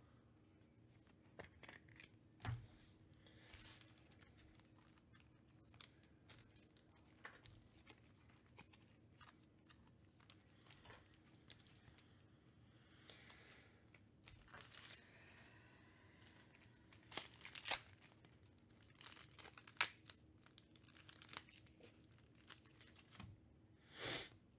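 Faint, scattered clicks and rustles of trading cards being handled and flipped through one by one, with a few louder snaps in the second half.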